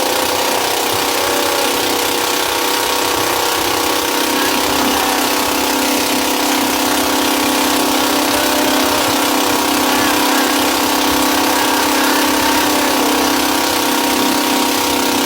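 Motorised fishing boat's engine running steadily at a constant speed, with a haze of rushing noise over it.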